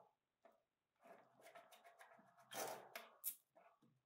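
Faint handling noise as hands work a power bank and its USB cable loose from the back of a metal board: soft rubbing and rustling, a louder scrape about two and a half seconds in and a short click just after.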